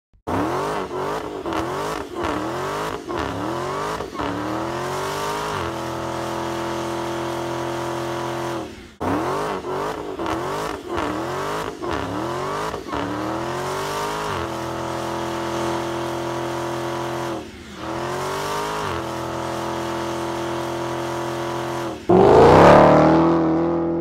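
Supercharged 6.2-litre Hemi V8 of a 2020 Dodge Challenger SRT Super Stock doing a burnout: the engine revs up in a run of quick rising surges, then holds a steady high note as the rear tyres spin and squeal, and this happens twice over. Near the end the car launches hard, much louder, the engine note rising as it pulls away.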